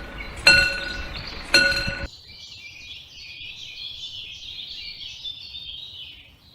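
Railway level-crossing bell sound effect striking twice, about a second apart, each strike ringing on. It cuts off about two seconds in, leaving birds chirping in the background.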